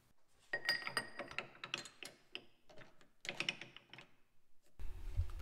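Metal clicks and clinks with brief ringing as a round aluminium bar is fitted and secured in a lathe chuck, in two clusters of sharp taps. A low hum starts near the end.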